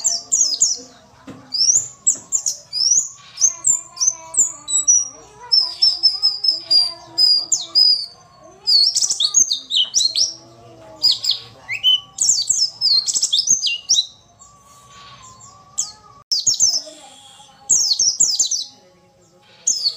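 White-eye (pleci) singing: rapid bursts of high, sharply falling chirps and twittering trills, with a couple of short pauses.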